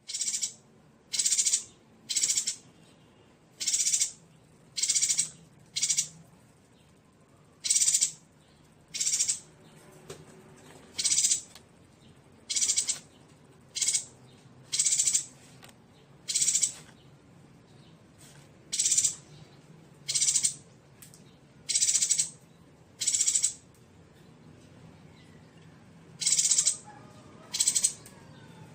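A yuhina calling: short, high calls repeated roughly once a second, with one pause of a few seconds near the end.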